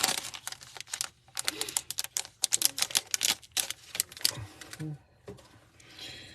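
Trading cards and their pack wrapper being handled, making rapid, crisp clicks and crinkles for about four and a half seconds, then going much quieter.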